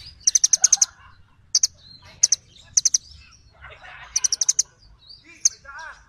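Brown-throated sunbird calling with sharp, high chips: a fast run of about six chips twice, with single and double chips between.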